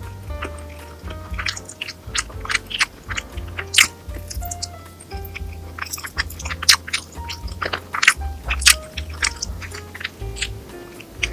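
Close-miked chewing and eating, many sharp irregular mouth clicks, over background music with short held notes and a low bass line.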